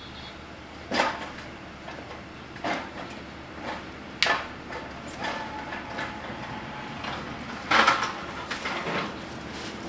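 Irregular knocks and clanks, about half a dozen sharp hits spread out with gaps between them, the loudest cluster near the end.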